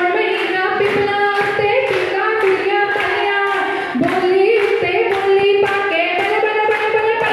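Women singing a Punjabi folk song together over steady rhythmic hand clapping, about two to three claps a second, as for giddha dancing.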